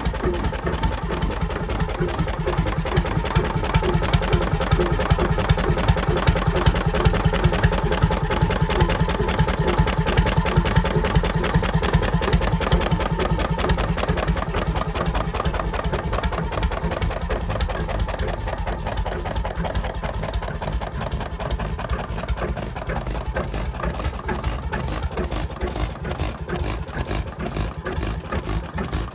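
Vintage two-stroke hot-bulb (semi-diesel) stationary engine running steadily, each power stroke heard as a distinct, evenly repeated beat.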